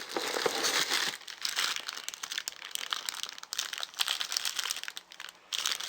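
Plastic packaging crinkling and rustling in irregular bursts as cables are unpacked from the box, with a short lull near the end.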